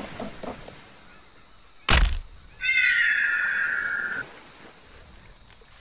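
A sharp crack about two seconds in, then a high, screeching creature call lasting about a second and a half and falling slightly in pitch: a pterosaur's shriek sound effect.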